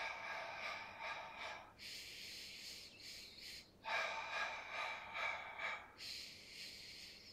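A man's heavy, forced breathing during a Pilates abdominal exercise: long, hissy breaths alternating in and out, about two seconds each.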